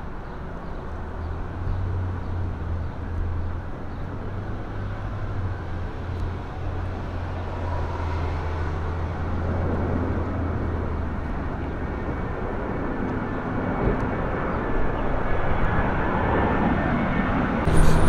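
Steady low drone of heavy diesel vehicles and machinery mixed with road traffic noise, its low engine tone changing about two-thirds of the way through.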